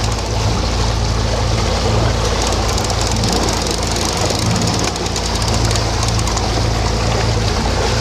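A sailing yacht's inboard diesel engine running steadily under way, with water rushing in the wake along the stern.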